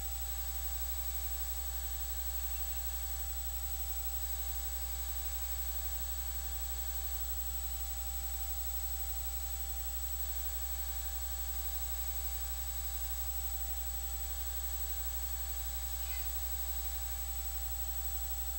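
Steady electrical hum and hiss with a high thin whine, unchanging throughout; no other sound stands out.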